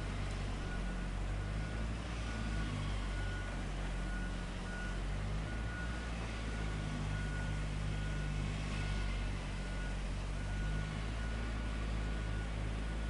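Heavy machinery engine running steadily at a low rumble, with an electronic warning alarm sounding a string of short, evenly spaced high beeps throughout.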